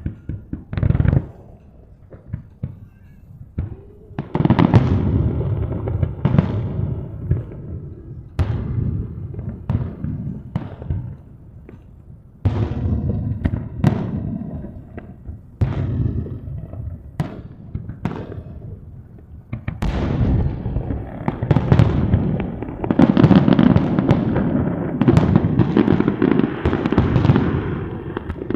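Aerial fireworks bursting: sharp bangs with echoing tails, a few scattered shots at first, then about four seconds in a fast run of overlapping booms and crackles that grows denser toward the end, as in a finale barrage.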